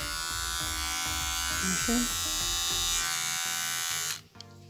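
Krypton rechargeable hair trimmer's motor switched on and buzzing steadily, then switched off suddenly about four seconds in.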